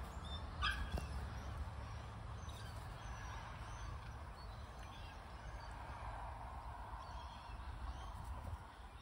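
Outdoor background: a steady low rumble, with one short high chirp under a second in and a light click just after.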